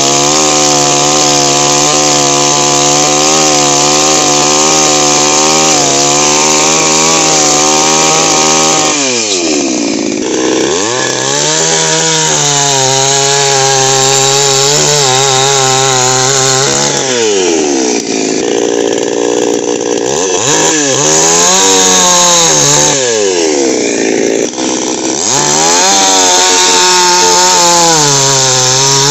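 Petrol chainsaw running at high revs while cutting into a dry tree stump. Three times, about a third of the way in, just past the middle and near the end, the engine drops off toward idle and then revs back up.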